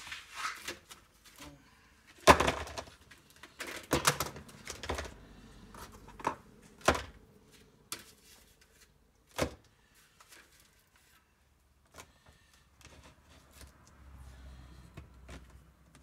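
Handling noise at a workbench: a small plastic tub and the items in it picked up and knocked about. A run of sharp knocks and clatter over the first ten seconds, the loudest a few seconds in, then only a few faint clicks and some rummaging near the end.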